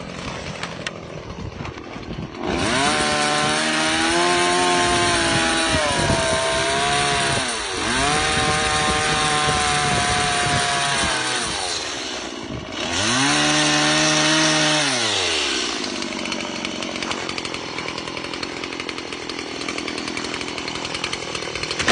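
Chainsaw at the gate: it idles, is revved up in three long bursts whose pitch sags and recovers as the chain cuts into wood, then drops back to idle near the end.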